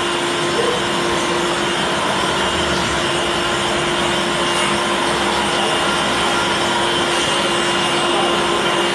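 CNC gasket cutting machine running with a steady, even mechanical hum and whoosh, holding one constant tone.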